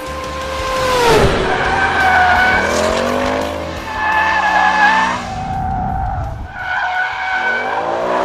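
Ford Mustang Mach 1's 5.0-litre V8 accelerating hard with its tyres squealing through corners; the engine note climbs in pitch about three seconds in and again near the end.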